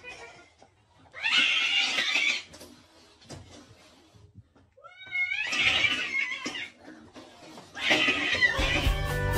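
A cat yowling and hissing in three angry outbursts of a second or so each, a threat display at its own reflection in a mirror.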